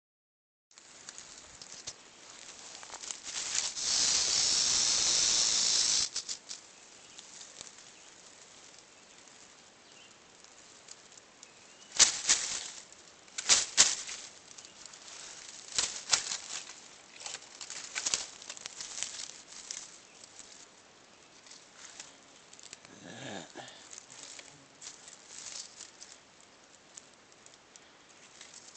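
A rattlesnake rattling its tail: a loud, steady buzzing hiss that lasts about three seconds, a few seconds in, the snake's defensive warning. Scattered short rasps and knocks follow.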